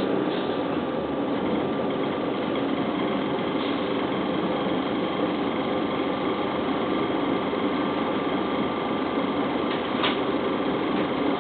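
Cabin noise of a New Flyer D40LF transit bus: its Detroit Diesel Series 50 four-cylinder diesel and Allison B400R automatic transmission running steadily, with a constant high whine over the engine drone. A short click about ten seconds in.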